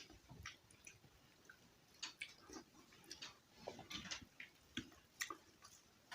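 Soft, wet chewing of starchy rice and mashed bhorta, with scattered mouth clicks and squishes at irregular intervals.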